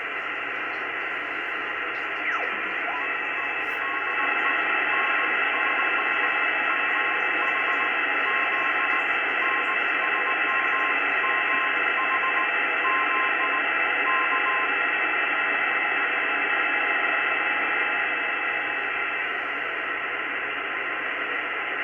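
Morse code telemetry beacon of the XW-2F (CAS-3F) amateur satellite, heard through a communications receiver in sideband mode. A weak keyed tone of dots and dashes runs in steady receiver hiss from a few seconds in until about two-thirds through. The beacon sends data such as temperature and battery voltages.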